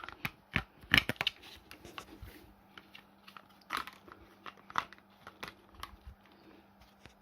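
Scattered plastic clicks and knocks from parts of a Dyson Ball Animal upright vacuum being handled and fitted together, the loudest knock about a second in.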